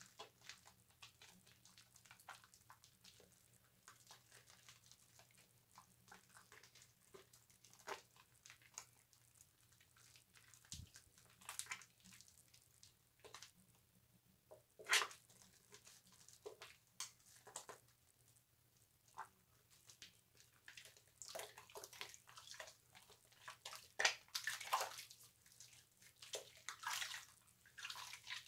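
Soap being lathered on a wet loofah: soft, irregular wet squishing and rubbing with drips, one sharper squelch about halfway, and busier lathering in the second half.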